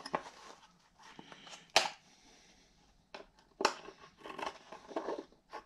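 Handling sounds from a small metal bracket and a hard plastic tray held together and shifted into position, with a sharp knock a little under two seconds in and another about three and a half seconds in, and light ticks and rubbing in between.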